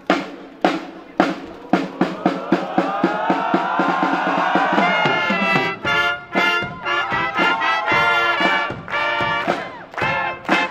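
Brass marching band with drums: even drum beats, then a held brass chord swells over quicker drumming and breaks about five seconds in into a punchy march tune on flugelhorns, trumpets and trombones with bass drum and cymbals.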